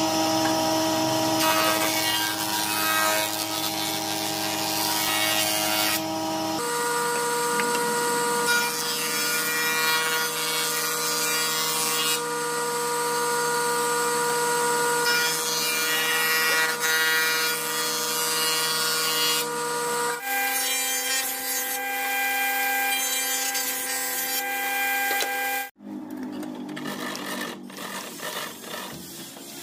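Woodworking planing machines running and cutting pallet boards: a steady machine whine under the hiss of the cutterhead as boards are passed over a jointer. The sound changes abruptly a few times, and after a sudden break near the end a quieter planer with feed rollers runs.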